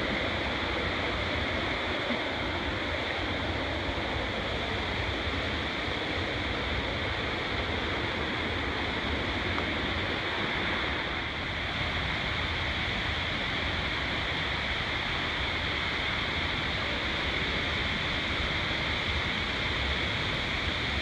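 Steady rushing of flowing water from a nearby waterfall or stream cascade, an even, unbroken roar.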